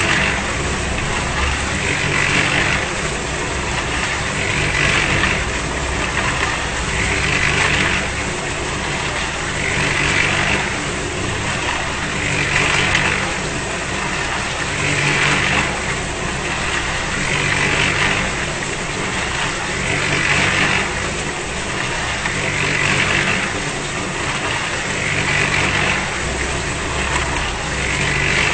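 Concrete mixer running, its drum turning steadily. A churning rush rises and falls about every two and a half seconds over a steady motor hum.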